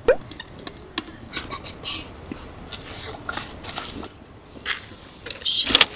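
Wood fire crackling in a camp fire pit that has just caught, with scattered small snaps and clicks.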